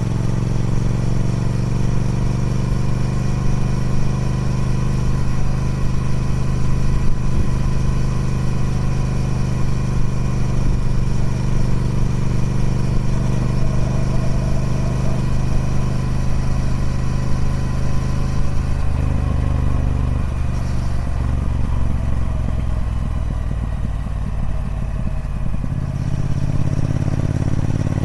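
Triumph Speed Twin 1200's 1200cc parallel-twin engine running through its stock exhaust, a steady engine note that breaks up and shifts about two-thirds of the way through, then settles into a steady note again near the end.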